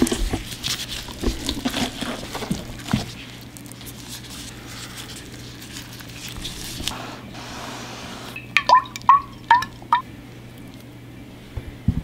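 Wet squishing and clicking of moist stuffing being handled and pressed into a hollowed pumpkin by gloved hands. About two-thirds of the way through come four short, loud squeaky blips in quick succession, each dropping in pitch, and near the end a low knock.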